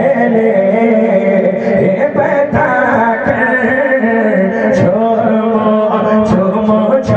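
A male voice singing an Urdu devotional manqabat, holding long wavering notes with no clear words.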